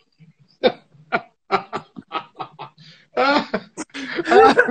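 Two men laughing hard: short bursts of snickering, breaking into louder laughter about three seconds in.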